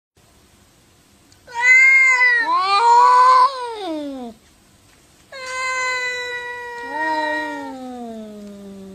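Cats meowing in long, drawn-out calls. One call starts about a second and a half in, rising and then falling, with a second voice overlapping it. A longer call follows from about five seconds in and slowly falls in pitch, and a lower voice joins it partway through.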